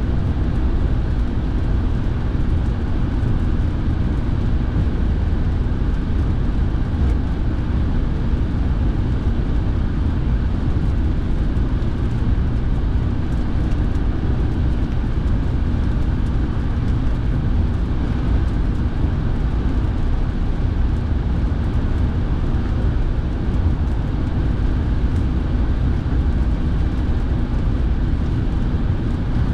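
Steady cabin noise inside a moving car: engine and tyre noise on a wet road mixed with the heater fan blowing.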